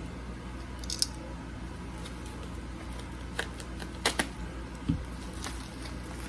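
Handling noise from a mailed package being opened: a few short crinkles and clicks, with a soft low thump about five seconds in.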